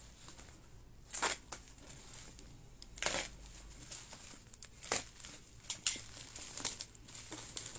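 Plastic parcel wrapping crinkling and tearing as it is cut and pulled open, with several sharp crackles through the rustling.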